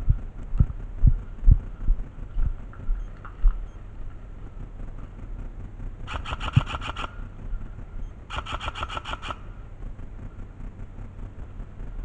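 Airsoft gun fired in two short bursts of rapid shots, about a second each and a couple of seconds apart, after a run of dull low thumps on the microphone.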